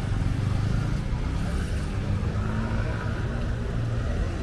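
City street traffic: vehicle engines running with a steady low rumble.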